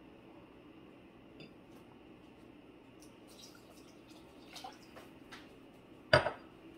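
Water poured from a drinking glass into a Thermomix TM6 mixing bowl, faint trickling and dripping with small ticks, then a single sharp clink about six seconds in.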